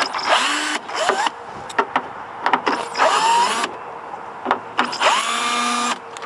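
Cordless drill with a T30 Torx bit run in four short bursts, its motor whine rising in pitch as each burst starts, backing out the screws that hold the door latch. Light clicks between the bursts.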